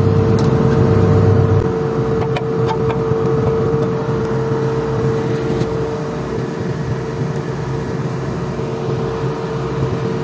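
Excavator's diesel engine idling steadily with a constant whine; its low rumble drops off about one and a half seconds in. A few light clicks occur over it.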